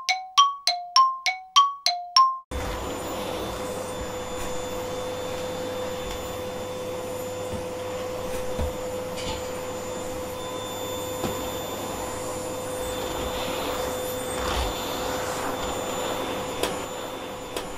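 A short chime jingle of about seven dings alternating between two notes, then a vacuum cleaner starts running about two and a half seconds in and keeps going steadily with a constant hum.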